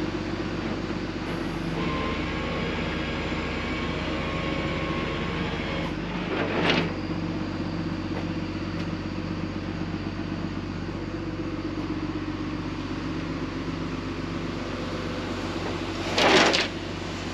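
A vehicle engine idling steadily, with two brief louder sounds about six seconds in and near the end.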